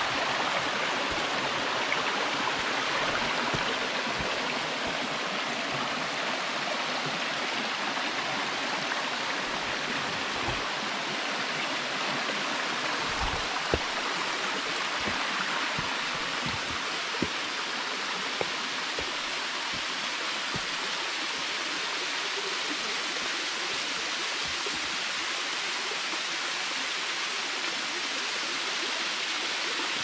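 Steady rush of water from a small rocky mountain stream and a thin waterfall pouring down a rock face into a pool. A few soft bumps come through near the middle.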